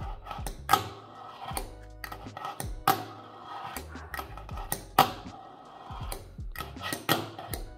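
Fingerboard tricks on a wooden tabletop: the small board's deck and wheels clacking against the table, with four sharp clacks about two seconds apart and lighter taps and rolling between. Background music plays underneath.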